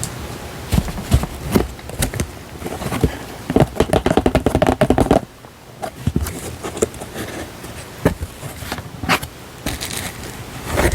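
Paper stationery and its packaging being handled close to the microphone: rustling, tapping and scraping of paper, with a rapid run of crackling strokes in the middle.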